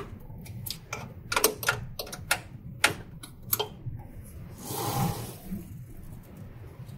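Sharp, irregular clicks and taps of small metal parts as the printer's ink capping station is moved and set by hand, followed by a short rustling slide about five seconds in.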